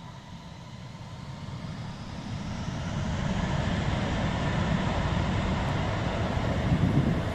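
Jet airliner's engines spooling up to takeoff thrust, a broad roar that builds over the first three seconds and then holds steady.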